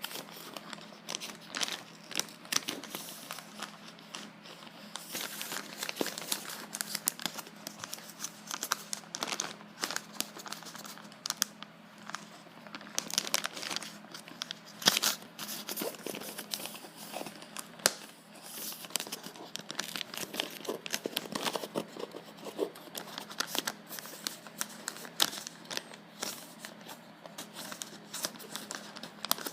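Plastic wrapping and packaging tape being handled and pulled off a parcel: irregular crinkling and crackling with sharp snaps and bits of tearing.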